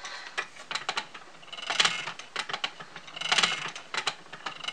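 Wooden flyer spinning wheel turning: its mechanism clicks and rattles, with a louder cluster of clicks about every second and a half.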